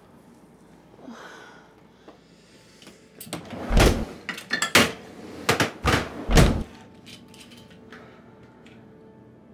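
A run of heavy thumps and knocks, about half a dozen over some three seconds, starting about three and a half seconds in, with soft rustling before them.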